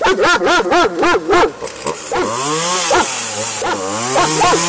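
A dog barks rapidly, about five short barks a second. Then a chainsaw runs as it cuts into a log, its engine pitch rising and falling, with the dog still barking over it.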